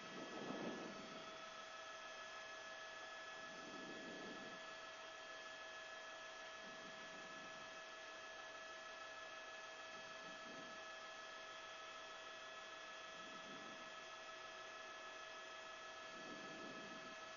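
Faint steady electrical hum with several thin high tones, in an otherwise idle live audio feed, with soft low swells about every three seconds.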